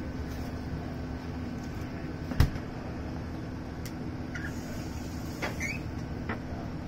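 Steady low room hum with one sharp knock about two and a half seconds in, then a few lighter clicks and short clatters.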